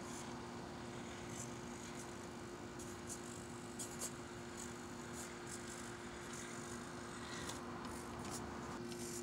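Axial AX24 1/24-scale RC rock crawler climbing over rocks: a steady low hum and whine with scattered light ticks and scrapes as the tyres and chassis work over the stone.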